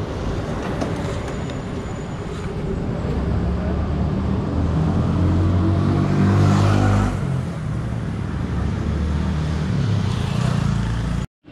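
Motor vehicle engine running with road noise; its engine note grows louder and stronger from about three seconds in, then eases after about seven seconds. The sound cuts off abruptly near the end.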